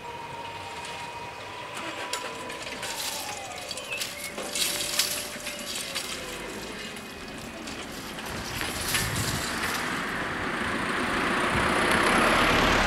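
Level crossing barrier drive motors whining as the booms rise. The whine holds steady, then drops in pitch and dies away by about six seconds in, with a run of clicks and clanks as the booms reach upright. A car then approaches and drives across, growing louder near the end.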